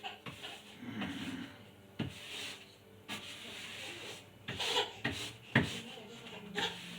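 A paintbrush stroking paint onto a wall in irregular rubbing strokes, with a couple of sharp knocks along the way.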